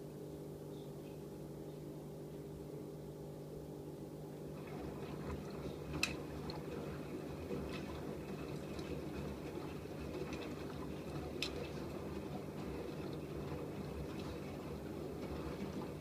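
AEG Öko-Lavamat 88840 front-loading washing machine in its fabric-softener rinse: the drum motor hums steadily, and about four and a half seconds in, water starts swishing and sloshing as the laundry tumbles. Two sharp clicks come about six and eleven seconds in.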